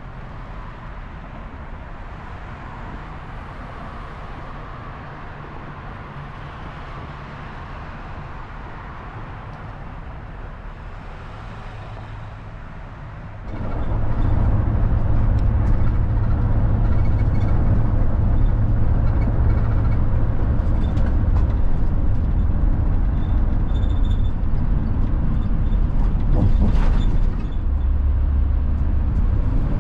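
Work van driving, heard from inside the cabin: steady engine and road rumble that turns much louder and heavier about halfway through.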